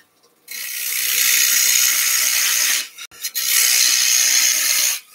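Bowl gouge cutting into an air-dried sycamore plate spinning on a wood lathe: a steady hiss of shavings being peeled off. It starts about half a second in, breaks off briefly with a click around three seconds as the tool is lifted, then starts again.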